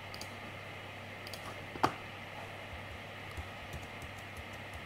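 Scattered faint clicks from a computer keyboard and mouse, with one sharper click about two seconds in, over a low steady hum.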